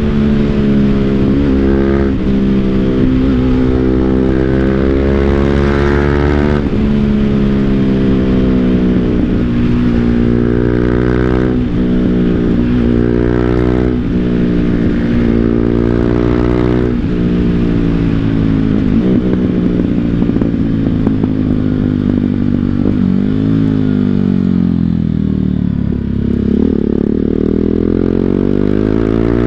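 BMW G 310 GS's single-cylinder engine through an Akrapovic full-system exhaust, accelerating hard through the gears: the pitch climbs and drops sharply with each upshift, over and over. Later the revs fall slowly for several seconds, then climb again near the end.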